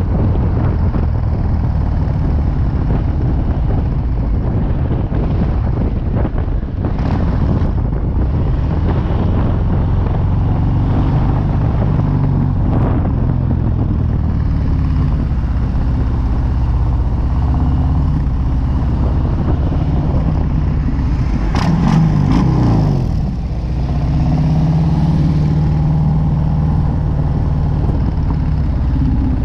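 Harley-Davidson V-twin engine running as the motorcycle is ridden along town streets. The engine note changes about three quarters of the way through, dipping briefly and then coming back stronger.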